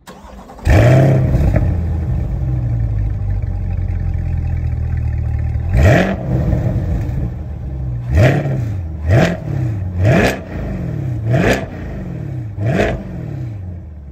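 Chevrolet Corvette C8 Stingray's 6.2-litre V8 starting up with a flare of revs and settling into idle. It is then revved six times in short throttle blips, each rising and falling back to idle.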